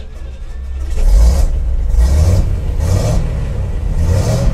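A 1966 Chevrolet truck's 327 small-block V8, just started, idling and then revved four times about a second apart, each rev swelling and dropping back.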